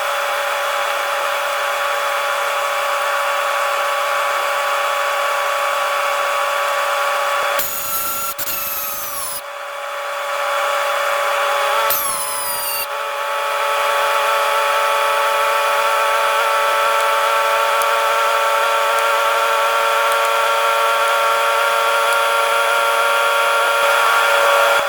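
Electric power tool motor running steadily with a high whine. Twice, around 8 and 12 seconds in, its pitch falls away as it slows, then it runs up again.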